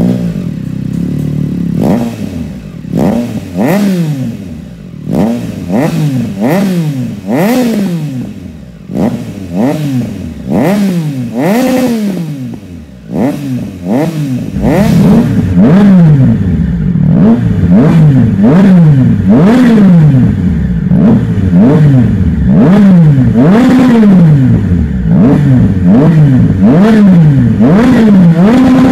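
Triumph Tiger Sport 660's inline three-cylinder engine, breathing through a catback exhaust with a Black Knight muffler, being blipped on the throttle while standing still: it revs up and falls back about once a second. From about halfway the revving gets louder and comes more steadily.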